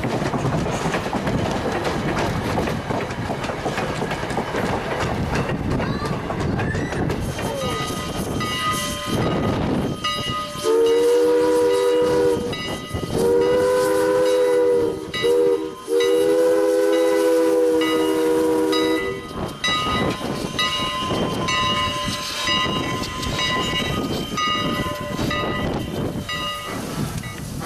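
Steam locomotive running, then its three-note chime whistle sounding two long blasts, a short one and a long one, the grade-crossing signal, over the noise of the moving train.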